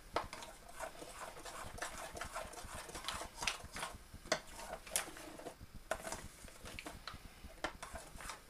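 Metal spoon scraping and clicking against a foil tray while stirring melted chocolate, in short irregular strokes.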